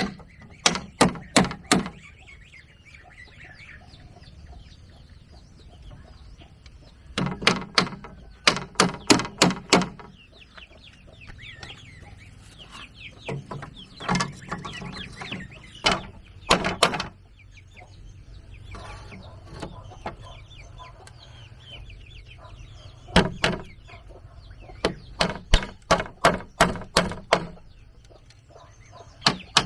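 Bursts of quick, sharp tool strikes on wood, about four or five a second, stopping and starting again several times. Hens cluck softly between the bursts.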